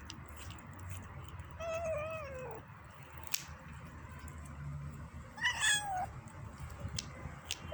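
Kitten making two short, wavering meow-like calls while eating, the first falling in pitch, the second higher and brief, with a few sharp clicks between them.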